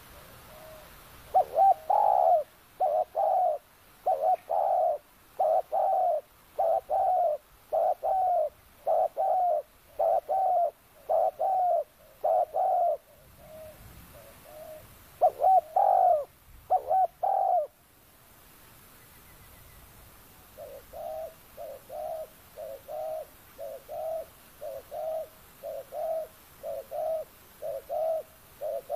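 Spotted dove cooing: a long series of short, evenly repeated coos, about one and a half a second. After a short break about two-thirds of the way through, a quieter run of the same coos starts.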